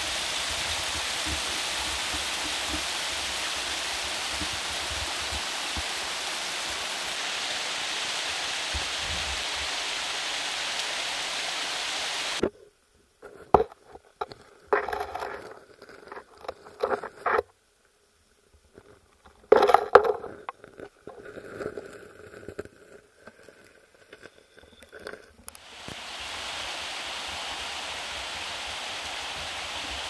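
A small waterfall splashing steadily into a forest stream pool. About twelve seconds in, this cuts off suddenly and gives way to muffled sound from an action camera held under the water: scattered gurgles and knocks with near-silent gaps. Near the end the stream's steady rush returns.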